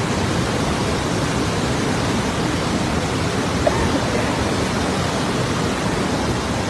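Steady rushing roar of the Parvati River in spate, a flooded mountain river after heavy rain.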